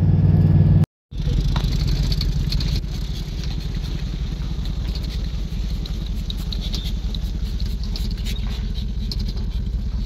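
Inside a pickup truck's cab while driving: a steady engine and road rumble, with a light crackling of the tyres rolling slowly over a sandy, gravelly lot. The sound drops out completely for a moment about a second in, then resumes.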